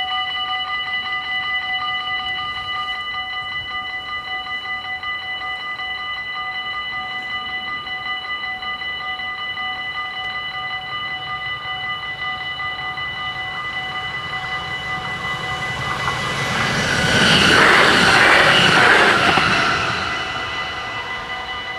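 Dutch level-crossing warning bells ringing continuously in fast strokes. Past the middle, a Stadler FLIRT electric train runs over the crossing: its noise swells to the loudest point and then fades, while the bells keep ringing.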